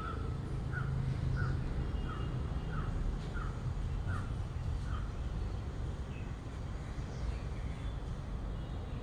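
A crow cawing, about eight short calls in an even series over the first five seconds, with fainter calls of other birds later. A steady low rumble runs underneath.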